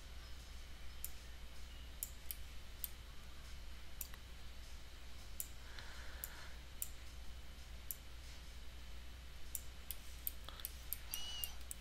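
Computer mouse clicking now and then, sharp separate clicks at irregular intervals, over a steady low hum.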